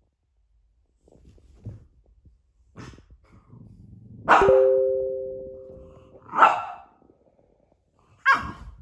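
A dog barking: three sharp barks spaced about two seconds apart, after a few fainter sounds. The first bark is followed by a steady two-note ringing tone that fades out over about two seconds.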